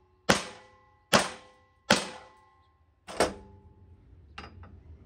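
Four sharp mallet blows on a steel mower deck, about one a second with a slightly longer gap before the last, each leaving a short metallic ring, then a couple of light knocks near the end. The blows are knocking slightly misaligned re-welded mounting pins into line so the deck fits its carrier.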